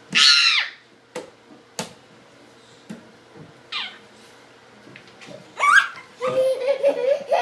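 Toddler's high-pitched excited squeals: a loud falling shriek right at the start and two shorter ones later. A few sharp knocks come between them, and wordless babbling follows near the end.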